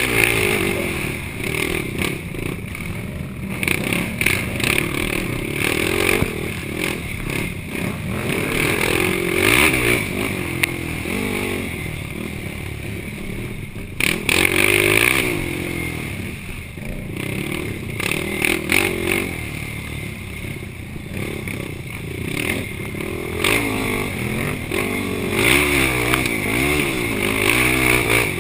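Yamaha YFZ450 quad's single-cylinder four-stroke engine revving up and down over and over as the rider accelerates and backs off, with rattling and clatter from the rough ride.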